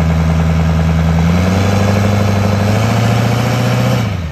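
Diesel truck engine running steadily. It rises a little in pitch about a second and a half in, then drops back near the end.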